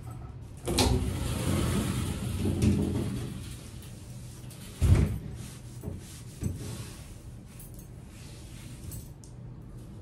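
Frosted-glass shower door sliding open along its aluminium track, a rolling rumble lasting about three seconds, followed by a single sharp knock about five seconds in.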